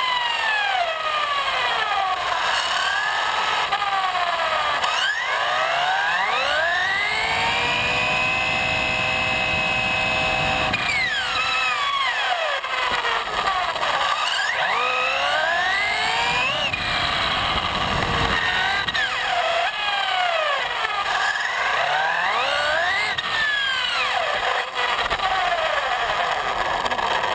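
Brushless motor of an XRAY XB808E 1/8 electric buggy on a 6S LiPo, a Castle Mamba Monster 2200kv setup, whining up and down in pitch as the car accelerates and slows, over tyre and road noise. For a few seconds about a third of the way in it holds one steady high whine at speed.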